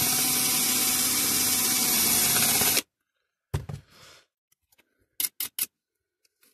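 A small electric power tool runs steadily for about three seconds and then stops abruptly. A knock and a few sharp clicks of small metal parts being handled follow.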